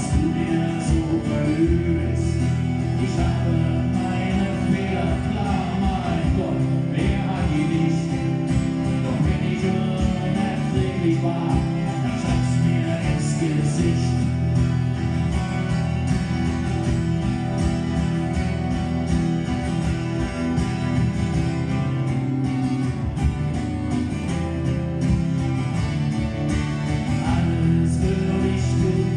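Live acoustic song: two acoustic guitars playing together, with a man singing over them.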